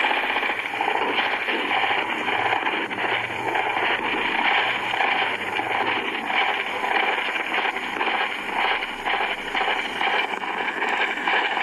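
Garbled playback from a damaged video CD coming through laptop speakers: a loud, steady rushing noise that flickers rapidly, with no intelligible speech.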